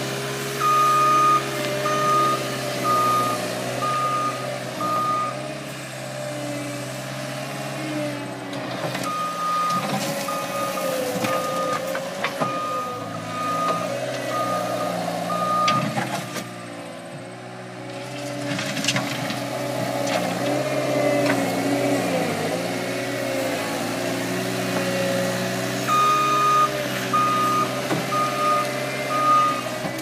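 Caterpillar 262C skid steer's diesel engine running throughout, its pitch rising and falling as it works under load. Its reversing alarm beeps at a steady pace in three runs: near the start, through the middle and near the end. A few sharp clanks come in the middle stretch.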